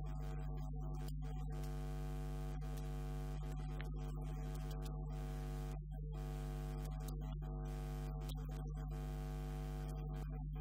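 Steady electrical mains hum: a low, even buzz with many evenly spaced overtones, running unchanged with no speech over it.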